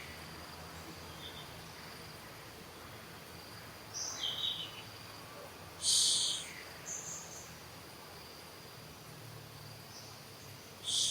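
Baby monkey giving four short, high-pitched squealing cries, each falling at the end, the loudest about six seconds in. A faint steady insect trill runs underneath.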